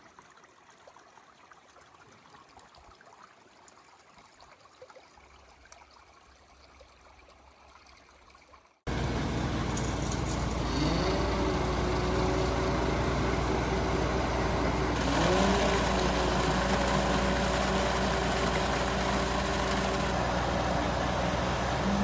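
A faint background hiss, then, about nine seconds in, a heavy truck engine running loud with a low rumble. Its pitch climbs twice, about two and six seconds after it starts, and holds steady at higher revs after each climb.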